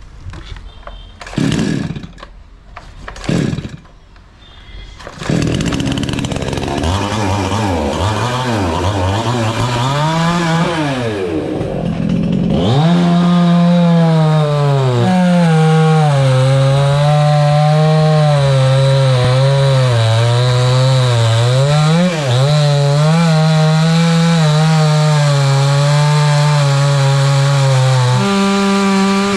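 Two-stroke chainsaw: after a couple of short loud bursts, the engine starts about five seconds in and revs unevenly. From about halfway it runs at high speed with small dips in pitch as it cuts, and rises briefly near the end.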